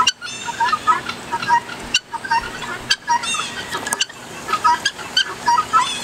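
A flock of helmeted guineafowl calling, many short overlapping calls from several birds at once, several a second.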